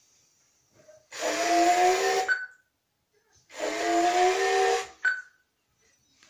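JJRC R1 Defender toy robot's speaker playing the same electronic sound effect twice, each lasting about a second and a half: a hissing burst with a chord of tones, ending in a short high beep.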